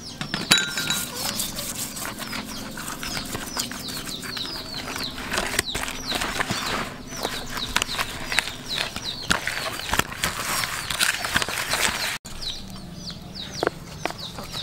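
Hands rubbing and squishing a salted, sauce-coated whole fish in a plastic basin: a steady run of wet slaps, squelches and clicks. Short falling bird chirps repeat throughout; after a brief break near the end the handling is quieter as leaves are pushed into the fish's belly.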